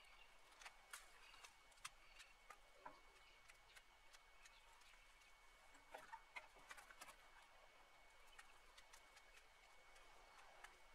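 Faint snapping and crackling of dry brush and branches being pulled and handled by hand, in clusters near the start and again about six seconds in.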